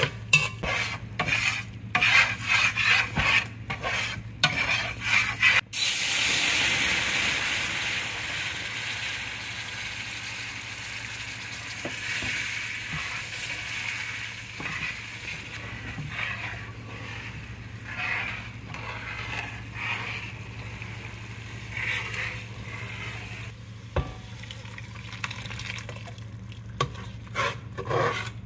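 Metal spoon stirring crawfish and vegetables in an aluminum pot, clinking and scraping. About six seconds in, a loud sizzle of a flour-and-oil roux in a hot skillet starts suddenly and fades slowly as a spatula scrapes through it.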